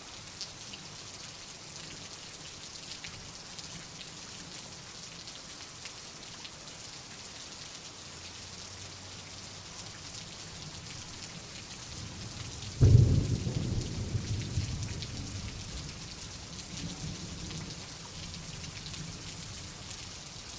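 Steady rain with fine ticks of drops. A little under two-thirds of the way through comes a sudden low thunderclap, the loudest sound, which rumbles away over several seconds.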